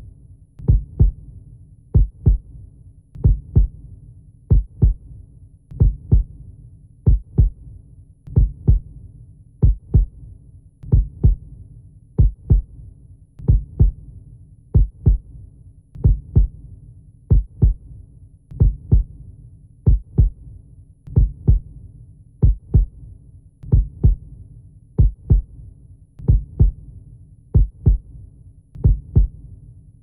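Slow heartbeat, a steady run of paired lub-dub thumps about every 1.3 seconds over a low steady hum.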